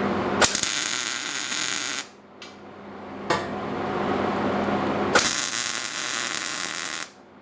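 Two bursts of arc welding, each about one and a half to two seconds of even, crackling hiss that starts with a click and stops abruptly, over a steady shop hum.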